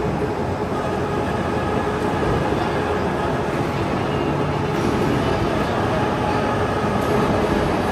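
Overhead crane travelling with a long steel pipe slung beneath it: a steady mechanical rumble with a faint hum.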